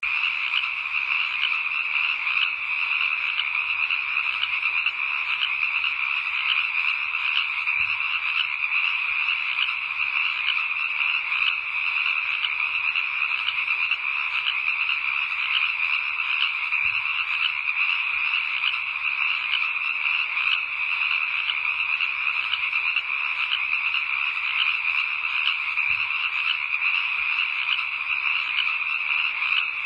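Dense, steady chorus of many frogs calling at once, with no break.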